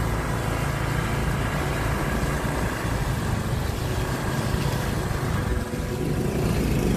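Motorcycle engine running steadily with road noise.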